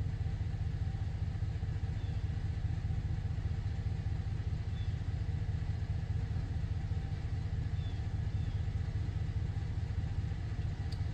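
Pickup truck engine idling steadily, a low even rumble heard from inside the cab.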